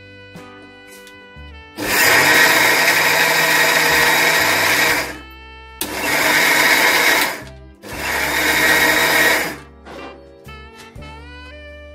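Electric mixer grinder with a steel jar, run in three bursts (the first about three seconds long, then two shorter ones), grinding soaked rice and urad dal into idli batter.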